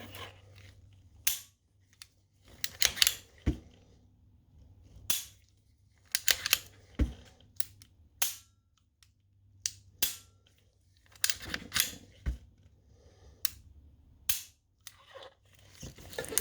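Beretta Model 81 Cheetah .32 ACP pistol's slide and action being worked by hand after reassembly: a dozen or so sharp metal clicks and clacks, irregularly spaced a second or two apart.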